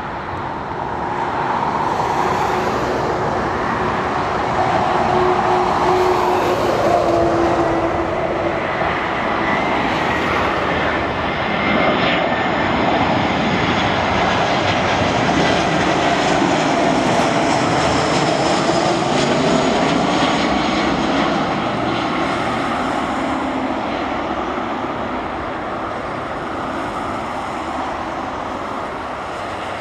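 Airbus A319-112 airliner on final approach, its CFM56 turbofan engines passing low overhead: a steady jet rumble with whining tones that slide slowly down in pitch, easing a little near the end.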